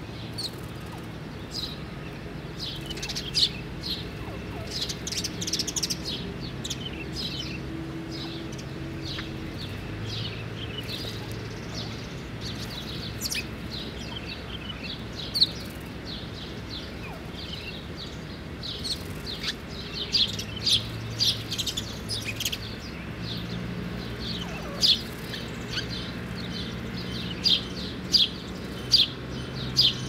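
House sparrows chirping in many short, sharp notes, busier and louder in the second half.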